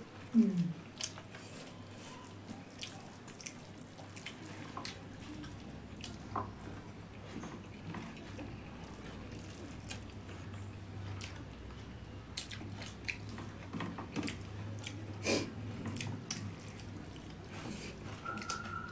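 Quiet eating sounds: soft wet mouth clicks and chewing, with scattered light taps of fingers mixing rice on stainless steel plates, over a low steady hum. Near the end a steady high tone comes in.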